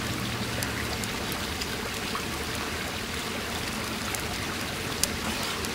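Campfire crackling: a steady hiss with scattered faint pops and one sharper pop about five seconds in.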